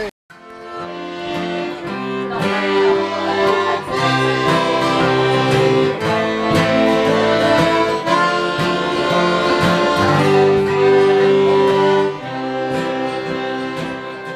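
An accordion and an acoustic guitar playing a tune together, the accordion holding long notes over regularly strummed guitar chords. The music fades in over the first two seconds.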